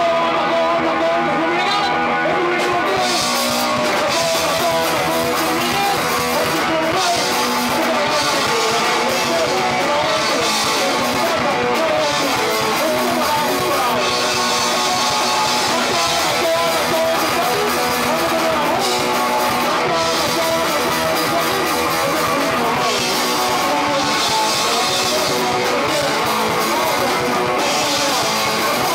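Punk rock band playing live: electric guitars and a drum kit with cymbals, and a singer shouting into the microphone.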